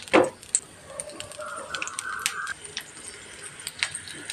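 Hot oil crackling in a shallow frying pan as papad rolls are laid into it: scattered small pops and clicks, with a brief louder sound just after the start and a short stretch of sizzle-like hiss a couple of seconds in.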